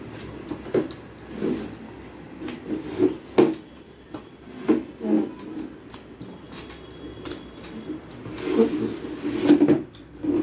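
Eating by hand from a stainless steel plate: fingers scraping and mixing food on the plate, and chewing close to the microphone, in irregular short bursts with a few sharp clicks.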